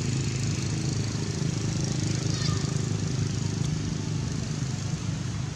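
Steady low hum of an engine running, over a constant outdoor background hiss.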